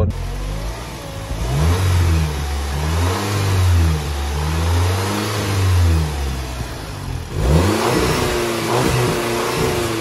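Volkswagen Golf R Mk7's EA888 2.0-litre turbocharged four-cylinder engine, on its stock intake and filter, revved in repeated quick blips of about a second each, heard at the open engine bay. About seven seconds in there is a cut, and further revs follow.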